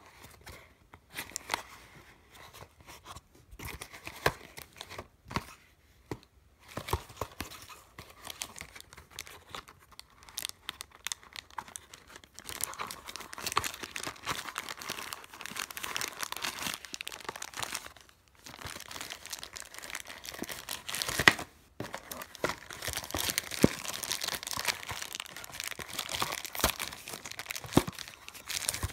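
Cardboard box and plastic packaging of an action figure being handled and pulled open: rustling and crinkling of plastic bags in long stretches, with scattered sharp clicks and one louder crack about three-quarters through.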